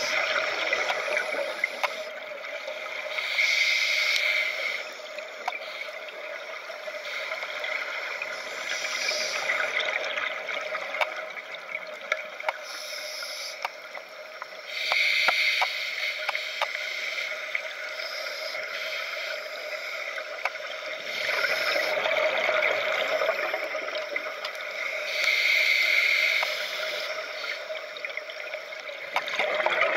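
Underwater audio of a scuba diver breathing through a regulator: bursts of exhaled bubbles gurgle every few seconds over a steady hiss, with scattered light clicks.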